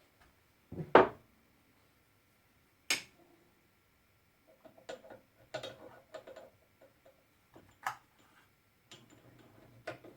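A loud metal knock about a second in, then a scatter of lighter metallic clicks and taps: steel tooling being knocked and handled while the Morse taper arbor is freed from the drill press spindle with a drift wedge.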